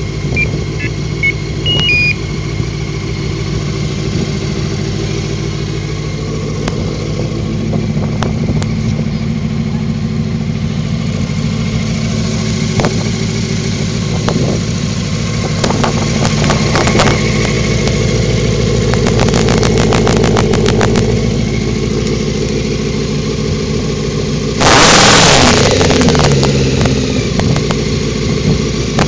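1987 Honda Hurricane 600's inline-four engine idling steadily, then a short, louder rev near the end.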